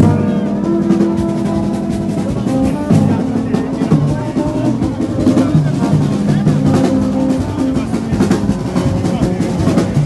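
Vodou ceremonial drums played in a fast, continuous rhythm, with voices singing held notes over the drumming.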